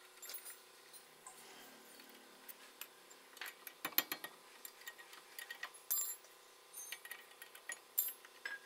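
Metal hand tools clicking and clinking against a car's brake caliper bracket as it is unbolted: scattered sharp metallic clicks and knocks at an uneven pace, the loudest about four seconds in.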